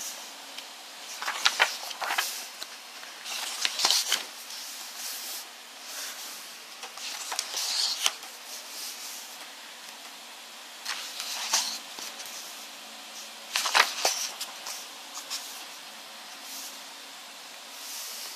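Photobook pages being turned by hand: a short papery swish every few seconds, with light paper rustle in between.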